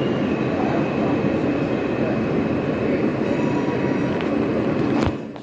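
R160A subway train running, heard from inside the car: a steady rumble of wheels on rails with a faint high tone over it. Near the end a sharp click, after which the noise drops much quieter.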